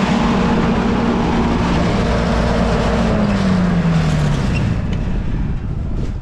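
Grain auger running with soybeans pouring through it into the bin, over the hum of its drive engine; the engine note falls in pitch about three to four and a half seconds in as it slows.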